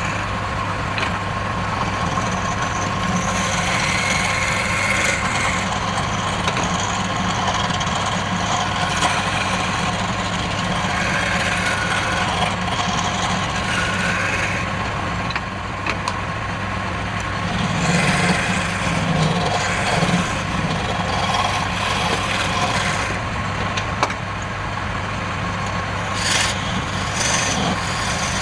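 Wood lathe running with a steady motor hum while a tool scrapes the spinning wood in uneven passes that swell and fade.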